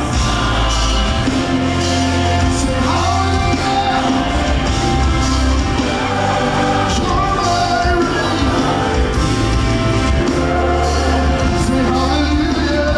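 Live gospel worship music: a band with drums, bass guitar and keyboard playing while a worship leader and singers sing.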